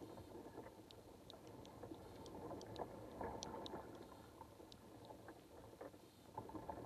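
Faint underwater ambience picked up by a submerged camera: a low, uneven wash of water noise with many small scattered clicks and ticks.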